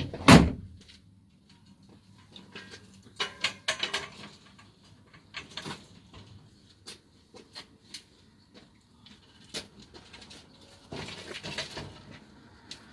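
A sharp loud knock at the start, then scattered clicks and light knocks, with a short burst of clatter near the end.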